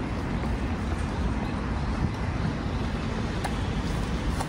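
Steady low rumble of passing vehicles, with two faint clicks late on.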